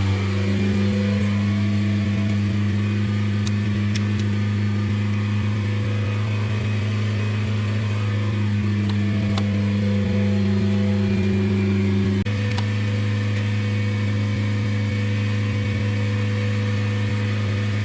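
VW Transporter T6 2.0 TDI diesel engine running at a steady idle with an even hum.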